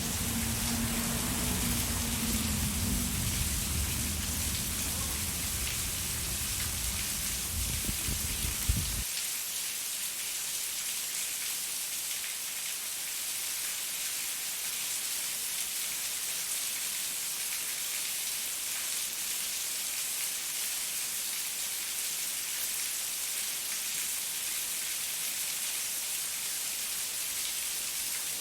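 Steady rain falling, an even hiss. For the first nine seconds a low rumble sits under it, at first with a faint steady hum. The rumble cuts off abruptly just after a single sharp knock about nine seconds in, leaving only the rain's hiss.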